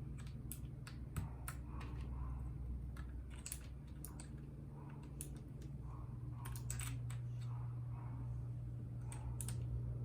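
Typing on a RAKK Lam Ang Pro mechanical keyboard with Bronze switches: irregular key clicks, some in quick runs, over a steady low hum.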